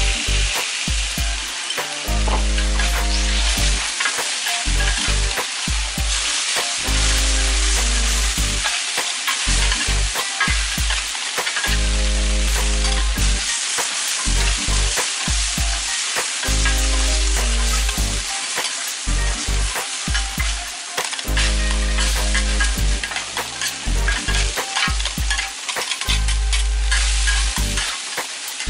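Monjayaki batter and shredded cabbage sizzling on a hot teppan griddle while metal spatulas scrape and chop through it, with many quick metal clicks. Low background music with a bass line plays under it.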